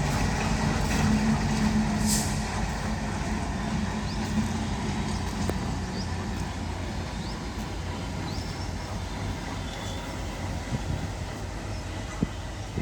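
Locomotive running with a steady low rumble and hum, the hum dying away partway through and the whole sound slowly getting quieter. A short hiss of air about two seconds in.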